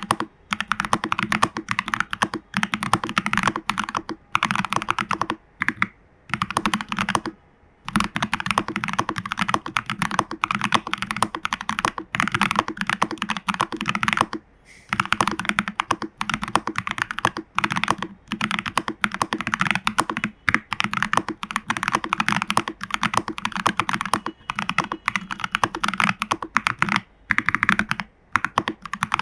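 Continuous typing on a custom TU40 mechanical keyboard: a plastic case with case foam, PCB foam and a tape mod, lubed Fantasy Virus switches, lubed Owlab stabilizers and XMI Cyrillic R keycaps. The keystrokes come in dense runs with short pauses, the clearest about seven seconds in and again about fourteen seconds in.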